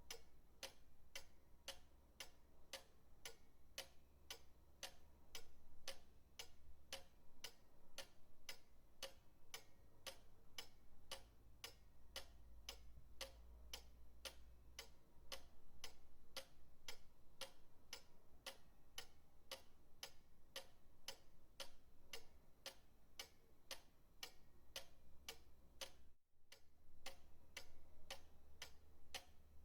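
Pendulum clock ticking steadily, about two ticks a second, over a faint low hum. The sound cuts out for a split second near the end.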